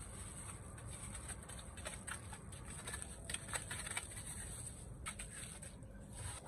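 Faint crinkling and rustling of thin plastic bags as portions of banku are scooped and wrapped by hand, in scattered small clicks over a low steady hum.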